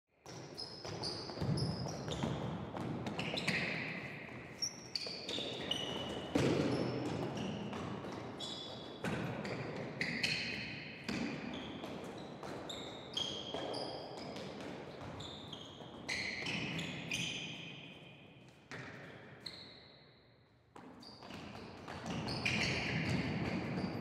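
Basketball sneakers squeaking on a court floor: many short, high squeaks, some sliding up or down in pitch, over dull thuds of feet and play. There is a short lull late on before the squeaking picks up again.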